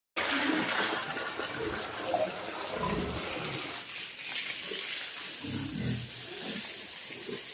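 Water splashing and spraying over a pig as it is washed, with the pig grunting low a few times.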